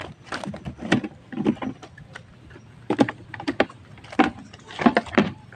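Cast net being gathered by hand: the weighted lower edge clicks and clacks, and the mesh rustles, in irregular bursts of several sharp clicks a second.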